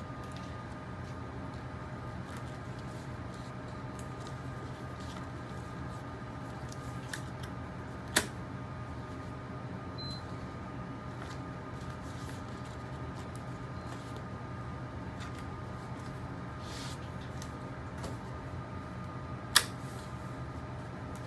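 Steady low machine hum with a faint high whine, broken by two sharp clicks about eleven seconds apart.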